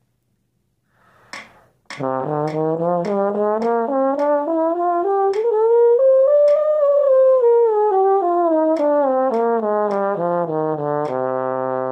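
Bass trombone playing a range exercise: a run of tongued notes, about two a second, climbing steadily into the high register and stepping back down, ending on a held low note. The run is still a little squirrely.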